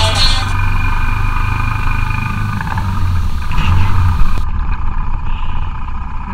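Honda 300 Fourtrax ATV's single-cylinder four-stroke engine running while riding, heard from the handlebar-mounted camera. The sound is steady, with a strong low hum and a haze of noise, and turns duller and fades a little in the last seconds.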